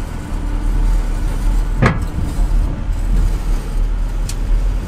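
Ram 1500 Classic pickup crawling slowly over slickrock with a steady low rumble. About two seconds in there is a single sharp crack as the truck's front end scrapes on the rock.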